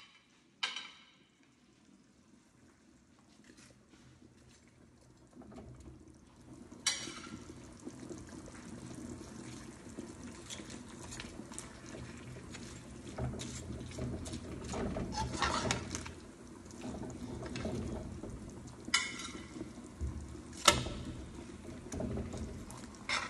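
A pan of pepper-and-onion sauce simmering and sizzling as fried fish are laid in, the bubbling building up after a few quiet seconds. A metal spatula clacks sharply against the pan a few times, the loudest about 21 seconds in.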